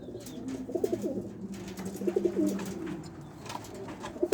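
Racing pigeons cooing, a run of low, repeated coos that come again every second or so.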